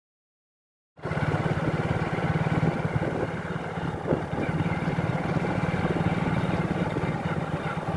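Silence, then about a second in an engine starts in abruptly, running steadily at idle with a fast, even pulsing.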